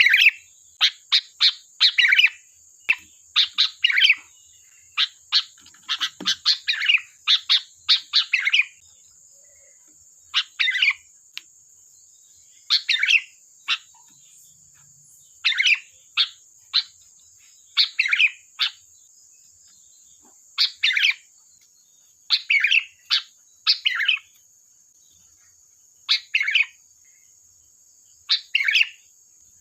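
Sooty-headed bulbul (kutilang) calling: short, loud phrases in quick succession for the first eight seconds or so, then repeated every second or two, with a faint steady high hiss behind them.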